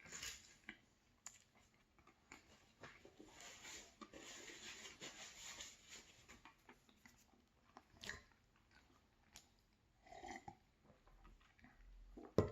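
Faint chewing of a soft, sticky frosted cupcake, with scattered small mouth clicks and a sharper click about eight seconds in.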